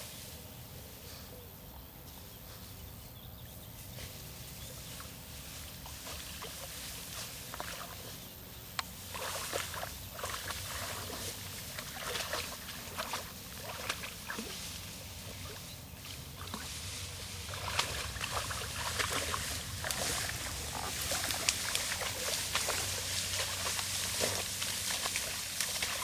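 Barbet water dog wading and swimming through a pond while searching for a lost dummy: water sloshing and splashing in irregular bursts. Quiet at first, then busier and louder about a third of the way in, and louder again past the middle.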